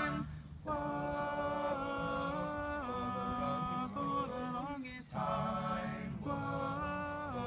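Male a cappella group of eight voices singing close harmony. Held chords step up and down in pitch, with short breaks about half a second in and about five seconds in.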